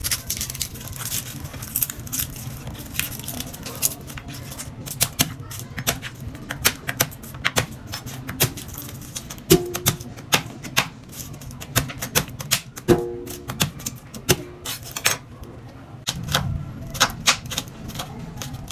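Kitchen knife chopping garlic cloves on a wooden cutting board: quick, irregular knocks of the blade against the board, several a second.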